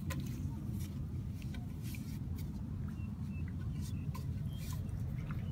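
Water pouring out of a bamboo pipe into a shallow pool, a steady low rush, with scattered small ticks and a few short high chirps over it.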